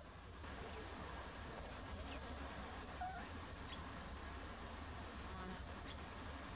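Faint outdoor ambience: a steady low rumble with about half a dozen short, high-pitched chirps scattered through it.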